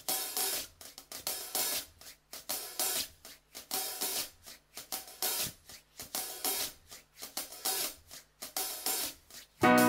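Background music: a drum-kit beat of hi-hat and cymbal hits, about two a second. Near the end a louder, fuller section with sustained pitched notes comes in.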